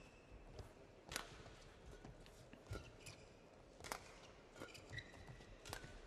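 Badminton rally: rackets striking the shuttlecock in several sharp, fairly quiet cracks about a second apart, with brief squeaks of shoes on the court mat between them.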